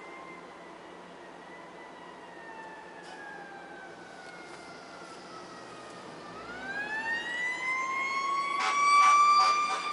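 Fire truck siren wailing as it approaches: the pitch slides slowly down for about six seconds, then climbs quickly back up and grows louder. Near the end a rapid run of short blasts sounds over it, the loudest part.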